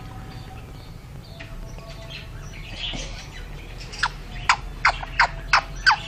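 Indian ringneck parakeet giving a quick run of about six short, sharp chirps in the last two seconds, about three a second.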